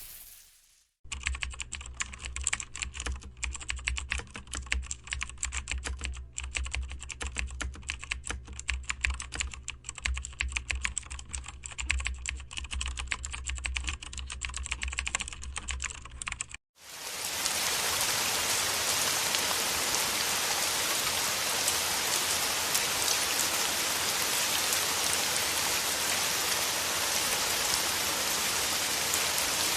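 Rapid, irregular clicking over a low steady hum for about fifteen seconds. It cuts off abruptly and gives way to a steady, even hiss.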